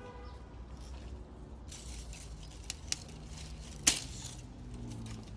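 Rustling of garden netting and grape bunches as they are handled. Small clicks throughout, with one sharp click about four seconds in, over a faint low hum.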